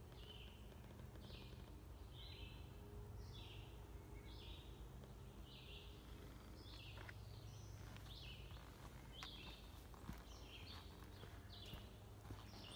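A woodland songbird singing a long string of short high phrases, one to two a second, over a faint low rumble. A few soft footsteps on a dirt trail come in the second half.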